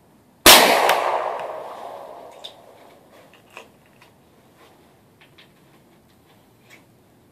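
A single big-bore rifle shot about half a second in, its echo dying away over about two seconds. A few faint clicks and knocks follow as the rifle is handled.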